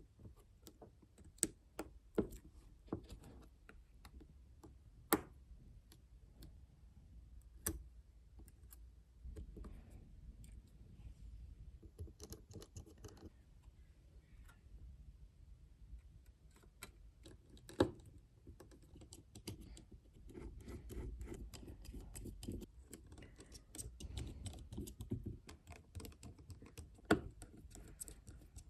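Irregular small clicks and taps with soft scraping, from hands and small tools working on a tablet during repair. A few sharper clicks stand out, about a second and a half in, near five and eight seconds, around eighteen seconds and near the end.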